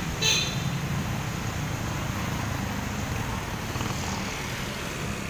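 Street traffic: a steady low engine rumble from passing and idling vehicles, with a brief high-pitched squeal just after the start.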